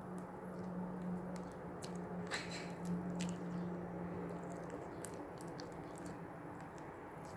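Clear slime with bead add-ins being worked by hand: scattered sticky squelches and small clicks and pops, one louder squish a little after two seconds in.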